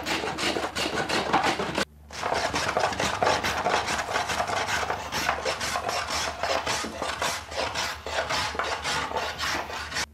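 Hand tool cutting and scraping the wood of a viola da gamba plate as it is hollowed out, in quick repeated rasping strokes, several a second. There is a short break about two seconds in.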